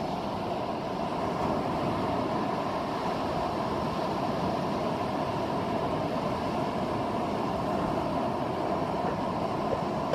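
Rough ocean surf breaking on the beach, a steady wash of noise with no separate waves standing out.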